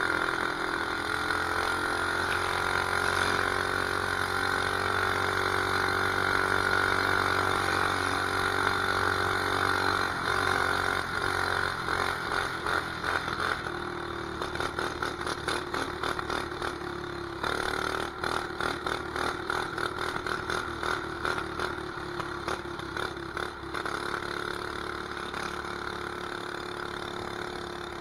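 Mini bike's 212 cc single-cylinder engine running under way, with a straight pitch for the first ten seconds or so. After that the sound turns choppy and uneven, rising and falling as the throttle is worked.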